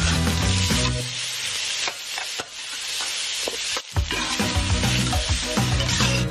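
Diced vegetables, meat and rice sizzling in a hot stainless-steel wok while a spatula stirs them, with background music over it. The sound cuts out abruptly just before the four-second mark, then the sizzling and music resume.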